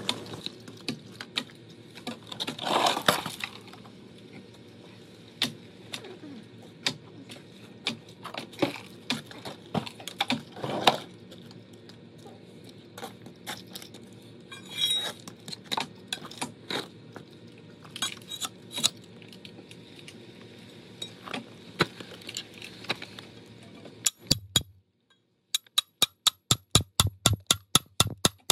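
Hammer striking a steel chisel to chip concrete: sharp, irregular metallic clinks, then near the end a fast, even run of strikes, about five a second.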